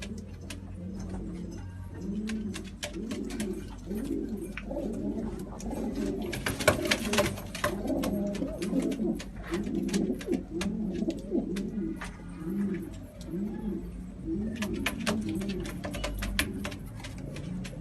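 Several domestic pigeons cooing, with repeated overlapping coos throughout, mixed with many sharp clicks and taps.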